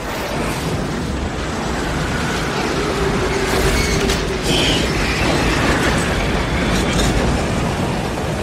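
Loud, steady roar of a storm, wind and rain with a deep rumble, with a few sharper crackles about halfway through.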